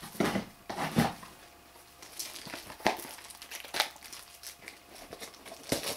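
Plastic shrink wrap being torn and crinkled off a small toy box by hand: irregular crackles, the loudest in the first second.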